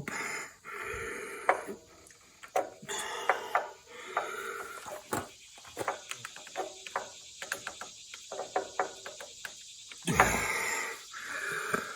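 Scattered sharp clicks and metallic knocks of a Harbor Freight ratchet quick clamp, rigged as a coupler tool, being worked against a tractor's hydraulic couplers after a coupling attempt fails under pressure. A heavier thump comes about ten seconds in.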